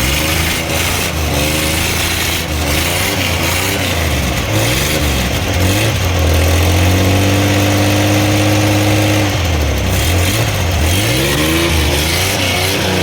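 Multicab mini truck's 12-valve engine being revved in repeated throttle blips, its pitch rising and falling, held at a steady higher speed for about three seconds midway. It is being revved to test a misfire, and the owner judges that a little popping is still there.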